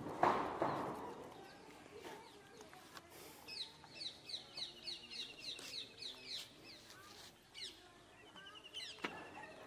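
Birds calling: a short loud squawk at the start, then a quick run of about a dozen high, falling notes, roughly four a second, over a fast trill, with another short trill near the end.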